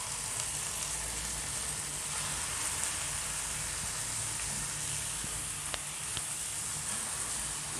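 Hot oil sizzling steadily in a pan around a mound of wet saag (mustard greens) just added to a tadka of fried garlic and green chillies, with a couple of small pops about two-thirds of the way in.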